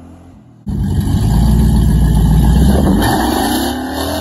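A 1999 Dodge Dakota's 5.2-litre V8 through a Borla bedside exhaust, faint as the truck drives off, then suddenly loud as it passes close by with a deep exhaust rumble. Near the end the engine note rises as it revs up.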